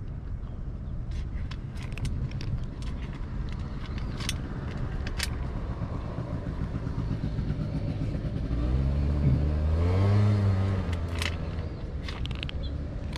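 Low traffic rumble with a motor vehicle passing close by, its engine swelling to the loudest point a little over two-thirds through and then fading. Scattered sharp crunching clicks from cats chewing dry food.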